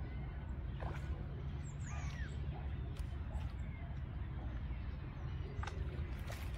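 Waterside ambience: birds calling now and then over a steady low rumble, with a curved call about two seconds in and a few short chirps. A few faint sharp clicks are heard, about one, three and six seconds in.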